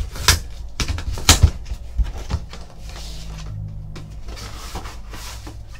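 A few sharp knocks and clicks, then quieter rustling, as a packaged item is taken out and opened.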